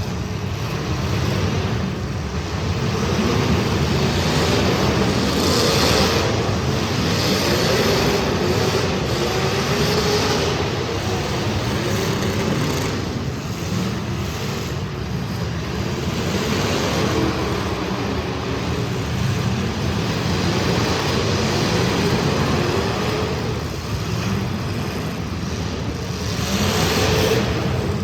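Engines of several street stock race cars running at racing speed, their pitch rising and falling again and again as the cars accelerate, lift and pass.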